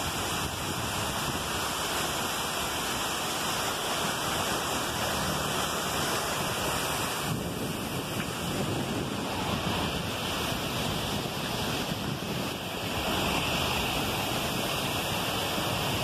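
River water rushing over rocks and weir steps as white-water rapids: a steady, unbroken rush of water.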